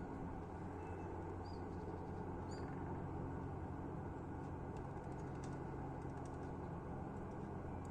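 A woodpecker tapping: a scattered run of light, sharp knocks from about four seconds in, with a few short, high bird chirps in the first three seconds, all over a steady low rumble.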